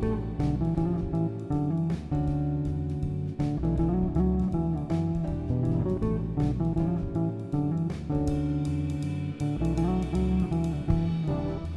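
Background music led by guitar, with plucked and strummed acoustic guitar over a bass line and a steady beat.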